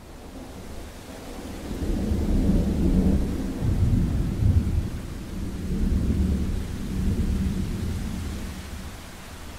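Thunder rumbling long and low over steady rain, swelling about two seconds in and dying away slowly toward the end.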